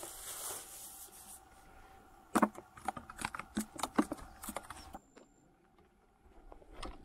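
Plastic bag rustling as a hand presses it down in a plastic bucket. About two seconds later comes a quick, irregular run of sharp clicks and knocks, like handling on the bucket and gear, which stops about five seconds in.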